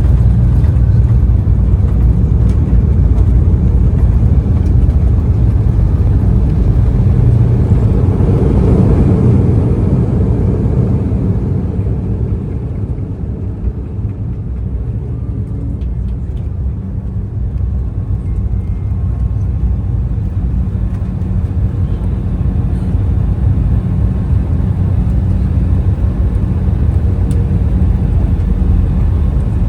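Cabin noise inside an Embraer E175 regional jet: a loud, steady low rumble of the engines and the airframe. It eases a little about twelve seconds in, then holds steady.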